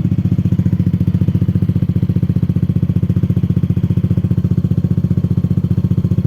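Yamaha Lexi scooter's single-cylinder engine idling steadily through an aftermarket Arrow exhaust, a loud, even, rapid putter.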